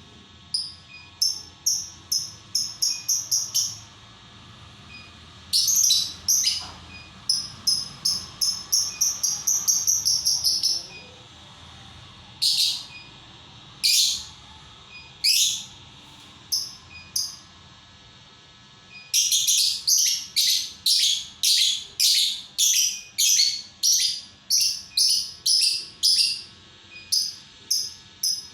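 Lovebird chirping: sharp, high-pitched calls given in quick runs of many chirps, broken by pauses and a few single loud calls.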